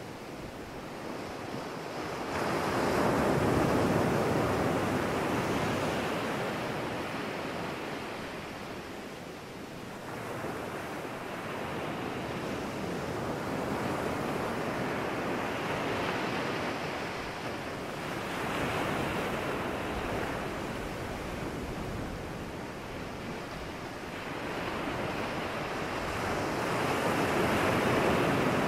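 Ocean surf breaking on rocks and washing up a sandy beach, swelling and fading in slow surges every several seconds, loudest about three seconds in and again near the end.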